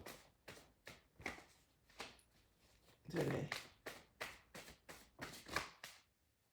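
Tarot cards being handled and shuffled: irregular sharp taps and snaps of the cards, with a brief voiced murmur about halfway through.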